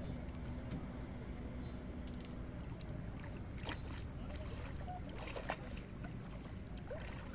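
Water sloshing and splashing as a hand-held reed fishing trap is worked down into shallow pond water by a wading man, with several short, sharper splashes in the second half. A steady low rumble lies underneath.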